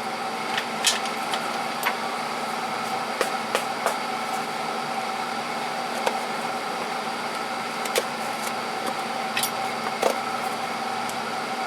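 A steady mechanical hum with several fixed tones, with scattered light clicks and taps as a cardboard box of washing soda is worked open.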